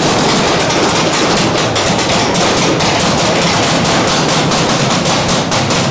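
Airsoft rifles firing continuously, a dense run of rapid clicking shots with no break.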